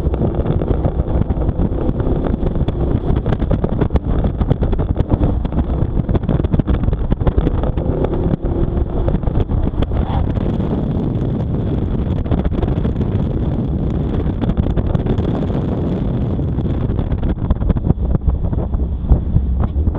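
Car driven hard through an autocross course: the engine running under load, buried in heavy wind rushing over the outside-mounted camera's microphone. The car slows near the end.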